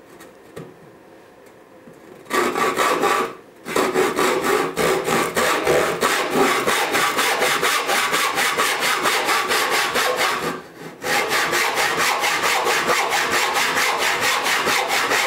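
Backsaw cutting across the grain of a pine board, sawing the wall of a dado by hand, in quick, even back-and-forth strokes. The sawing starts about two seconds in and stops briefly about two-thirds of the way through before carrying on.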